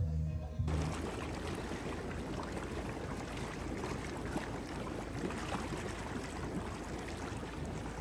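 Background music cuts off about a second in, giving way to a whirlpool hot tub's jets churning the water: a steady bubbling rush.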